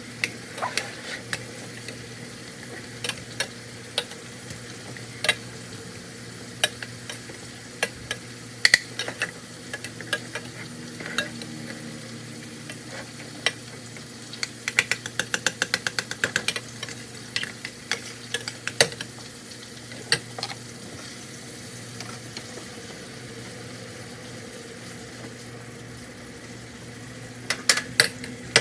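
A utensil clicking and scraping against cookware as food is stirred, with a quick run of rapid taps about halfway through and a few more clicks near the end, over a steady sizzle of food frying.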